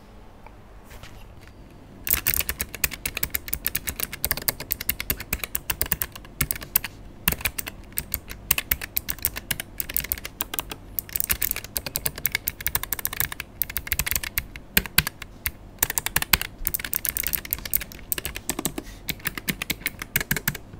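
Typing on a Keychron K11 Pro keyboard with low-profile Gateron Blue clicky switches: a fast, uneven run of key clicks that starts about two seconds in and keeps going.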